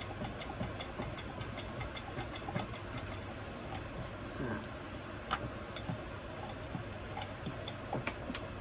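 Quick, light clicking of a rolling pin and rolling board as roti dough is rolled out, about four clicks a second, thinning out partway through, with a few louder clacks near the end. A low steady hum runs underneath.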